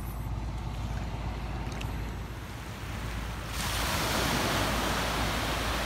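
Small waves washing up a sandy shore over a low rumble of wind on the microphone; about three and a half seconds in, a louder hiss of surf sets in and holds.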